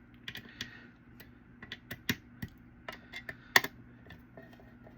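Light, irregular clicks and taps of small hard parts being handled while assembling a small computer case, with one sharper click a little past halfway. A faint steady hum runs underneath.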